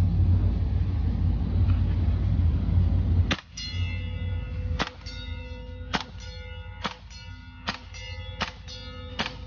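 A loud low rumble for the first three seconds or so. It gives way abruptly to a string of single shots from a Tokyo Marui AKM gas blowback airsoft rifle, one every half second to a second. The 0.5 g BBs strike a metal target that clangs and rings on between hits.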